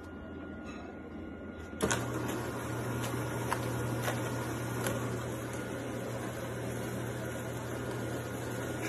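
Motor-driven rake of a self-cleaning litter box running through clumping litter. The steady mechanical hum starts suddenly about two seconds in, with a few light ticks and scrapes.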